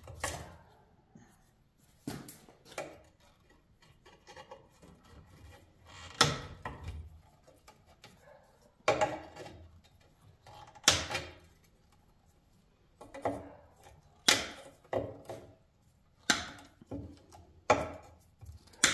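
Wire cutters snipping through an electric motor's insulated lead wires: sharp, separate snips at uneven intervals of one to three seconds, with faint rustling of the wires in between.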